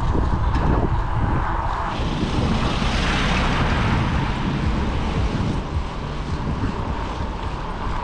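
Wind buffeting the microphone of a camera on a moving bike, with steady road rumble. Tyre noise swells as an oncoming car passes about three seconds in.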